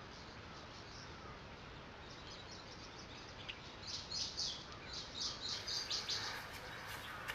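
Outdoor ambience: a steady hiss with birds chirping. Short, high chirps come in about halfway through and repeat several times a second.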